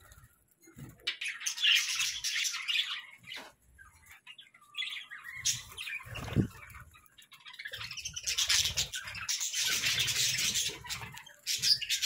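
A flock of budgerigars chattering and chirping in bursts, with short quieter gaps between them.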